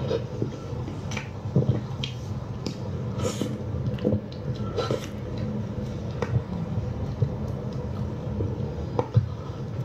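Close-up eating sounds: a bread sandwich being handled, bitten and chewed, heard as scattered soft clicks and mouth smacks over a steady low hum.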